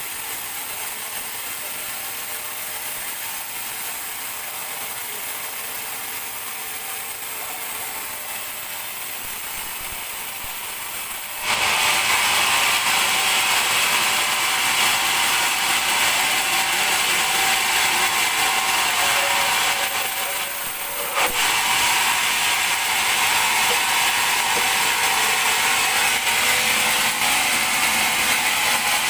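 Large log band saw running, then cutting into a teak log: the steady running noise turns into a much louder, hissing sawing sound about a third of the way in. The sawing dips briefly about two-thirds of the way in, then carries on.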